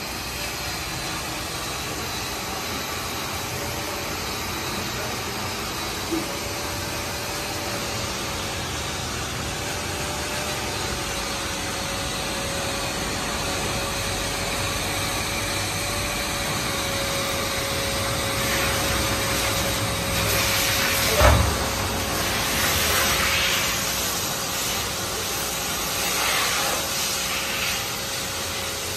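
Car wash equipment running: a steady motor noise with a thin whine. Hissing bursts come in the second half, and there is one sharp knock about 21 seconds in.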